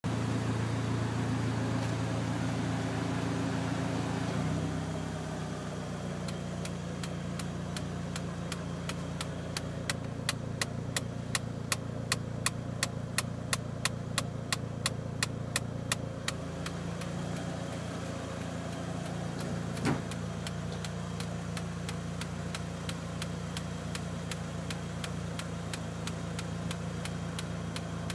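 Mitsubishi Lancer Evolution I's turbocharged 4G63 inline-four idling hot, its radiator fan running until it cuts out about four seconds in. Soon after, a regular sharp ticking sets in, about two to three ticks a second, clearest in the middle and fainter towards the end, with one louder click later on.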